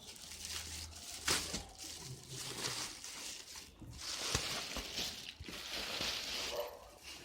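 Plastic cover rustling and crinkling as it is handled and pulled off a padded cricket kit bag, with a few sharp clicks.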